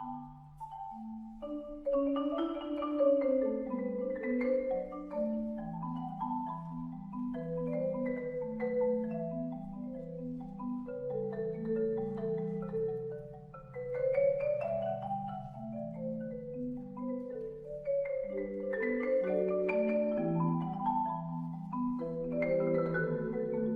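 Background music: a melody of struck mallet-percussion notes, marimba- or xylophone-like, over a moving bass line.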